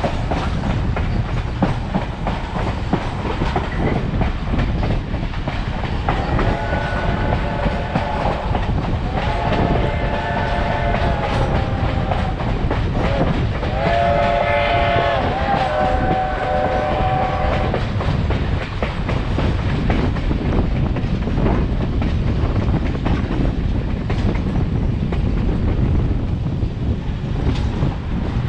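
Steady rumble and clickety-clack of a passenger car rolling along the track. Across the middle, Reading & Northern steam locomotive 2102's multi-tone chime whistle sounds two long blasts, then a short one and a long one, the pattern of a grade-crossing signal.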